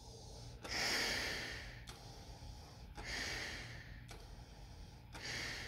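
Breathing through a US M40 gas mask: three airy breaths about two seconds apart, each starting sharply and fading. The wearer is sniffing to check whether the test spray's smell gets past the mask's filter and seal.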